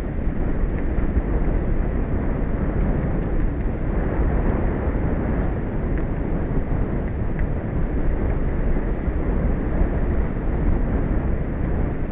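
Wind blowing on an outdoor microphone: a steady low rumble with no distinct events.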